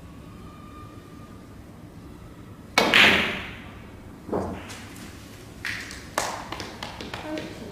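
Snooker balls: a sharp crack about three seconds in, then a softer knock and a scatter of lighter clicks as balls hit each other and the cushions and a red is potted.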